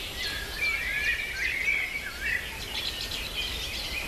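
Songbirds singing: a busy run of quick chirps and short gliding whistles, busiest and loudest in the middle, over a low steady outdoor background.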